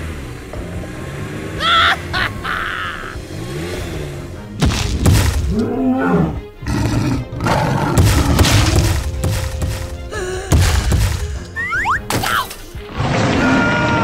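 Background music with dubbed-in sound effects: several sudden crashes and thuds, and a roar for the toy dinosaur.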